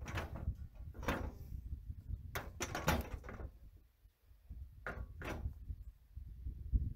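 Irregular metal knocks and rattles from a steel sheep head catch as a restrained sheep shifts in it, about eight in all, with a short lull in the middle.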